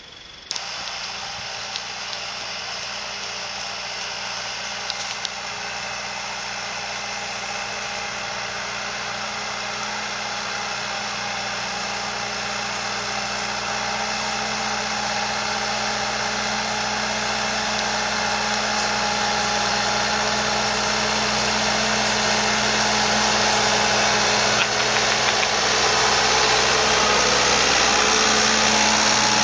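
A farm tractor's diesel engine running at a steady, unchanging pitch as the tractor drives through snow, growing steadily louder as it approaches and is loudest as it passes close by near the end.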